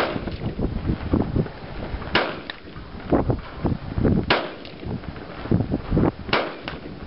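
Rifle shots fired from a shooting bench: four sharp cracks about two seconds apart, each followed by a fainter crack a fraction of a second later.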